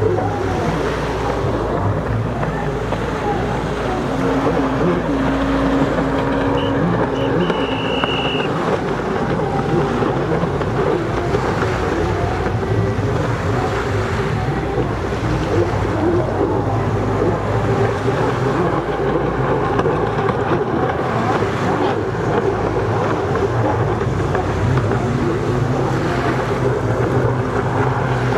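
Racing personal watercraft (jet skis) running at speed out on the water. Their engines make a steady drone, mixed with waves and wind noise on the microphone.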